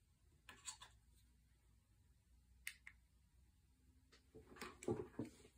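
Near silence, broken by a few faint short clicks: one pair about half a second in, one near three seconds, and a small cluster of soft knocks near the end.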